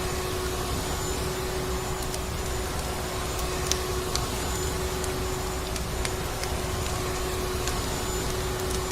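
Vacuum cleaner motor running steadily, a constant whirring hum with a steady whine, mixed with sparse sharp crackles of burning wood from a fireplace.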